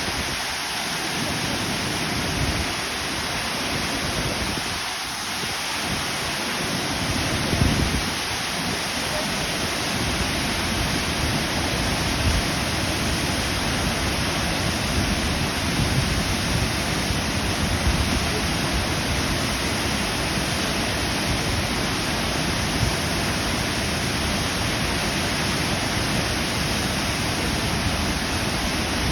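River and waterfall rushing in a steady, dense roar of water, with some uneven low rumbling during the first several seconds.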